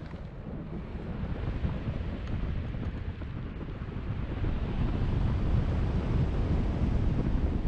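Airflow rushing over a GoPro microphone in paraglider flight: steady wind noise, strongest in the low range, getting louder about halfway through.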